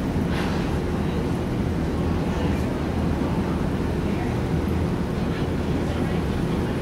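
Steady low rumble of room noise in a large indoor arena, with no distinct separate sounds standing out.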